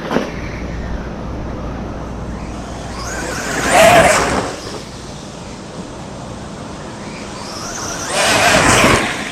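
A 3S brushless-converted Traxxas Slash 4x4 RC car with high-speed gearing speeding past twice, its electric motor and drivetrain whining louder and then fading, about four seconds in and again near the end.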